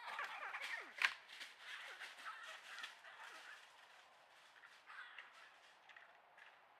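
Wild animal calls: a rapid run of short, falling squeaks and chirps with a few sharp clicks, busiest in the first three seconds and thinning out toward the end.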